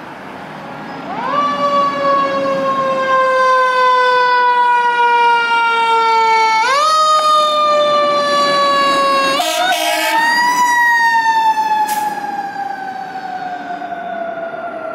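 Siren of a 2012 KME fire engine responding to a call: it winds up quickly about a second in, then slowly falls in pitch, and winds up twice more before falling away slowly again.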